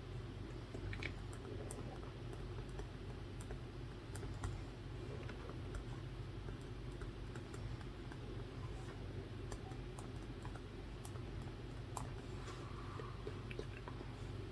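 Light, irregular computer keyboard typing, scattered clicks over a steady low hum.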